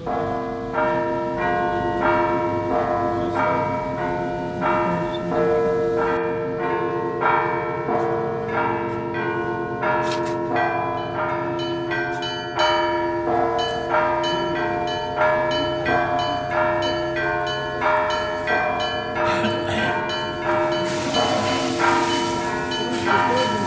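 Russian church bells rung in a steady repeating rhythm: smaller bells struck in quick patterns over the long-ringing tones of larger bells.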